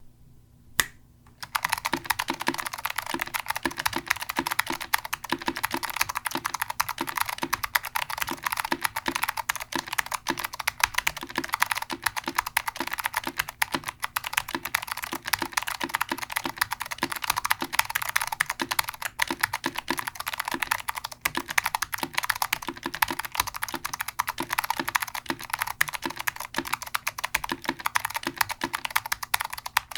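Continuous fast typing on a custom Gemini TKL keyboard with new-old-stock Alps SKCM Blue clicky switches on a 1.2 mm POM plate, fitted with thick high-profile double-shot ABS IBM 5550 keycaps. A single keystroke comes first, and steady typing starts about a second and a half in.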